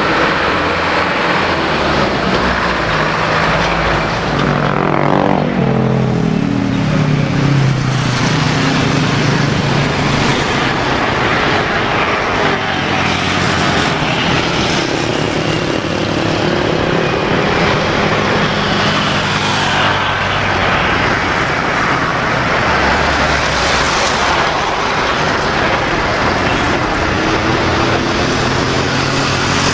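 Airbus A330-300's Rolls-Royce Trent 700 jet engines on the ground. A falling whine about four to eight seconds in as they wind down, then a steady jet rumble and hiss as the airliner rolls slowly along the runway.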